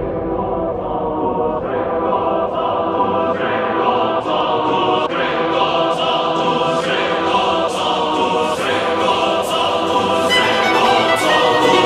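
Background music: a choir singing held chords over an orchestra, with a steady beat that comes in about a second and a half in.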